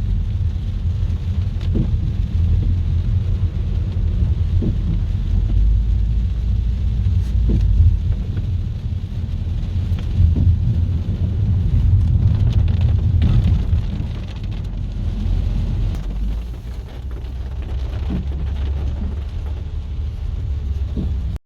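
Heavy rain falling in a thunderstorm over a deep, continuous rumble of thunder, with scattered sharp drop ticks close by. The rumble eases about fourteen seconds in.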